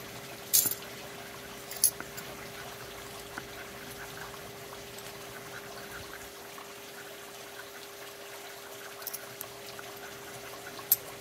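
Steady running water with a steady hum beneath it, and a coin scraping the coating off a scratch-off lottery ticket in short strokes, the loudest about half a second and two seconds in.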